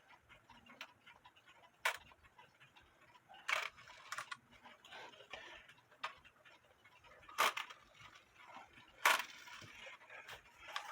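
Sparse light clicks and knocks at uneven intervals, about half a dozen, from handling an old wall clock with a wooden-plate movement.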